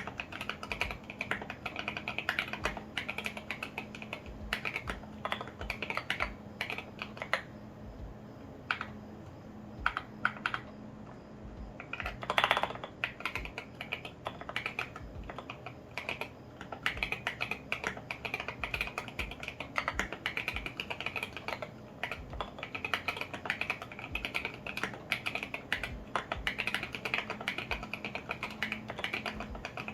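Typing on a custom KBDfans Tofu65 acrylic mechanical keyboard with lubed and filmed Alpaca V2 linear switches and SA ABS keycaps: a quick, dense run of keystrokes. The typing thins to a few scattered keys for a few seconds, then a single louder, longer clack comes about twelve seconds in before the fast typing resumes.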